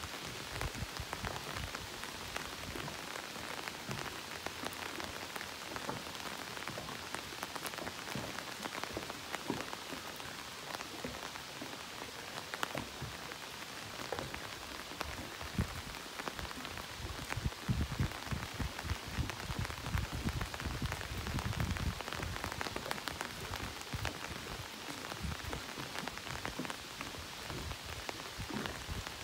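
Steady rain falling, a dense even hiss dotted with countless small drop ticks. A low rumble swells in and out around the middle.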